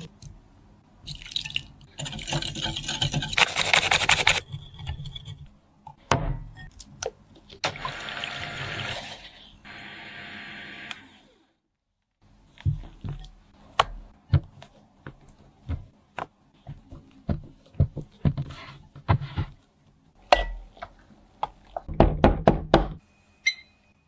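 Wire whisk beating egg-yolk batter in a glass bowl, a fast scratchy clatter of metal wires against glass. Later comes a run of separate sharp taps and clicks of utensils on the bowl.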